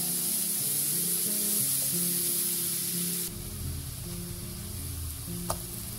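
Ground spice paste sizzling in a hot nonstick wok as it is stirred with a silicone spatula, under soft background music. About three seconds in, the sizzle gives way to a quieter hiss of liquid simmering in the pan, with one small click near the end.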